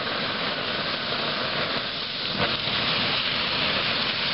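Log fire burning with a steady hiss, and one sharp crackle about two and a half seconds in.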